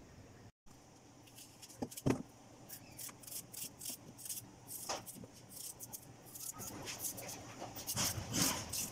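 Onion pieces being handled and dropped into a plastic strainer basket: a run of light clicks, taps and rustles, with one louder knock about two seconds in, getting busier toward the end.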